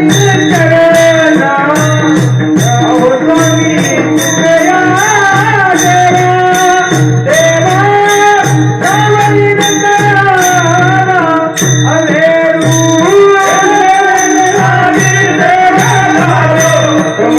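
Devotional kirtan music: a bending, melismatic melody over a steady held drone, driven by a regular drum beat and repeated small-cymbal clashes.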